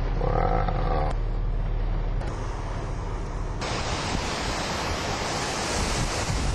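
Hurricane-force wind rushing over a camcorder microphone, a steady loud noise with a short whining tone in the first second. About three and a half seconds in it changes abruptly to a brighter hiss.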